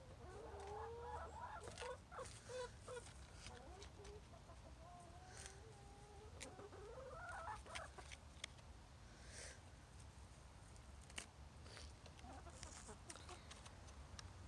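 Brown hens clucking quietly while foraging, with short rising and falling calls in two spells, in the first few seconds and again around the middle. Scattered sharp ticks run throughout.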